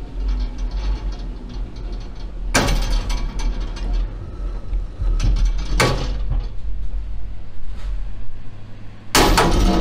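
A 1955 Allis-Chalmers WD45 tractor being winched onto a trailer by a steel cable run through a pulley and pulled by a truck: a steady low rumble with several bursts of mechanical clanking and rattling from the cable, pulley and rolling tractor, the loudest near the end.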